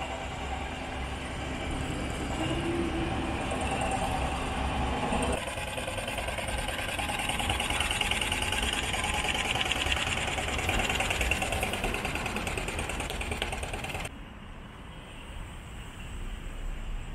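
Outdoor city street ambience with traffic. A high, fast-pulsing buzz sounds through the middle. The sound changes abruptly about five seconds in and again near the end, where it drops quieter.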